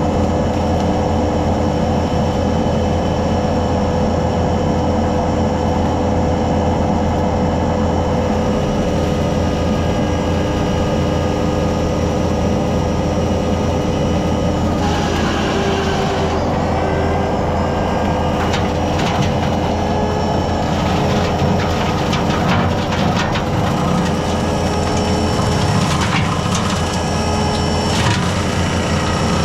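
Kubota SVL65 skid steer's diesel engine running steadily at working speed, with a steady whine from the brush cutter. From about halfway in, repeated sharp cracks and snaps come through as the cutter chews into woody brush and overgrowth.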